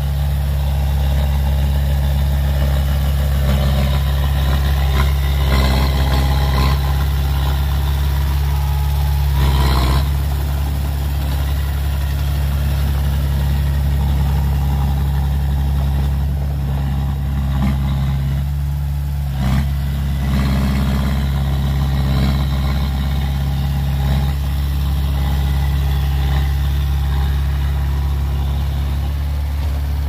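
Small crawler bulldozer's diesel engine running steadily as the machine pushes and spreads loose soil, with a couple of brief knocks about a third and two-thirds of the way through.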